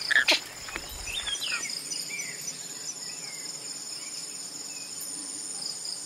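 A steady high-pitched chorus of crickets chirring. In the first two seconds a few bird calls break over it, the loudest just after the start.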